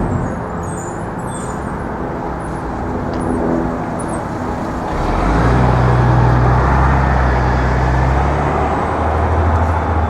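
Road traffic noise. About five seconds in, a heavy vehicle's engine comes in loud and low and runs steadily close by, fading near the end.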